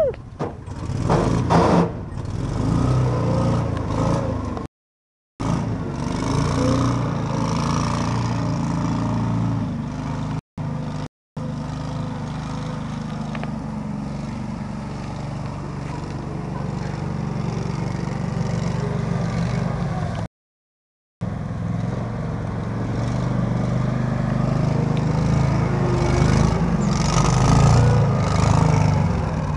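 Coot ATV's engine running as the machine is driven over rough ground, getting louder near the end. The sound cuts out completely a few times.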